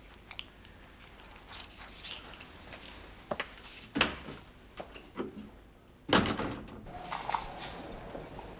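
Footsteps crossing a room and a door latch clicking as the door is opened about four seconds in. About six seconds in, the loudest sound: a sudden metallic clank and rattle of a wire-mesh prison gate at its lock.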